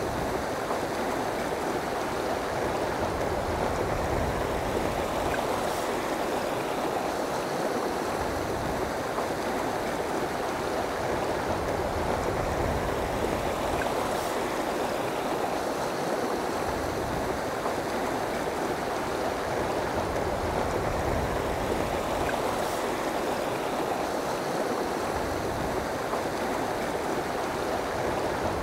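River water rushing steadily over rocks and riffles.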